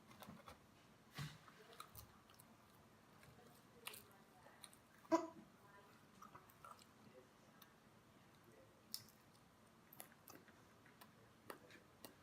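Soft mouth sounds of a person chewing food, with scattered small clicks and one short, louder sound about five seconds in.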